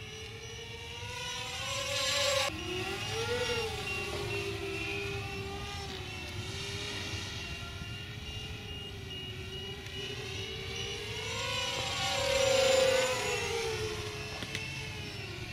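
DYS X230 racing quadcopter's brushless motors and propellers whining in flight, the pitch rising and falling as the throttle changes. The pitch drops suddenly about two and a half seconds in, and the whine swells louder around two seconds and again about twelve seconds in as the quad passes closer.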